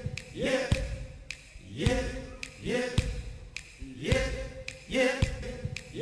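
A male singer's voice sings 'yep' over and over, about five times. Each is a short syllable that slides up in pitch, with a low thump under it. The repeats come about once a second and are identical, as in a loop.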